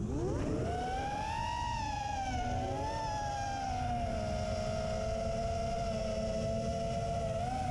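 Racing quadcopter's four DYS SE2205 brushless motors whining over wind rush on the onboard microphone. The pitch climbs steeply at the start as throttle comes back in on leaving an inverted flip. It wavers for a few seconds, then settles into a steady cruise whine.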